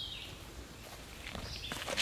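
Footsteps shuffling on a dirt path and leaf litter as a disc golfer steps up and throws, with a bird's short high call at the start and again near the end.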